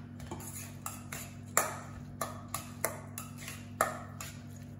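A metal utensil clinking against a stainless steel mixing bowl as grated carrot salad is tossed: about nine short, sharp clinks at uneven intervals.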